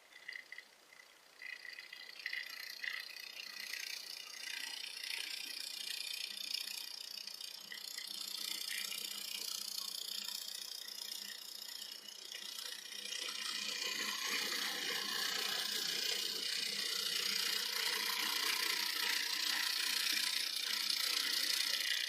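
Small electric gear motor whirring with a light mechanical rattle. It grows louder about two thirds of the way through.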